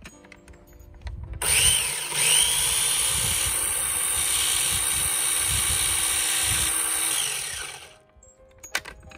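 Electric blender running for about six seconds, starting about a second and a half in and cutting off near the end, grinding soaked, burnt chili seeds into a paste.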